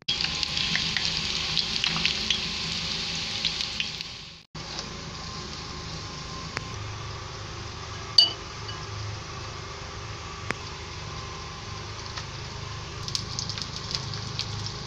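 Plantain slices frying in hot oil: a steady sizzle with many small crackles. It is louder for the first four seconds, breaks off briefly, then goes on more quietly, with a single sharp click about eight seconds in.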